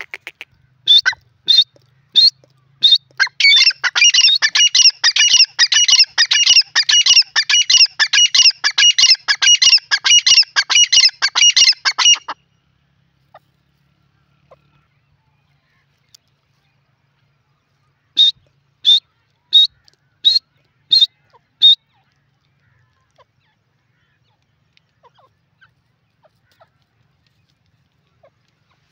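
Grey francolin calling loudly in high-pitched notes. A few single calls about two-thirds of a second apart run into a fast, unbroken string of calls lasting about nine seconds, which stops abruptly. After a pause, six more single calls follow at the same even spacing.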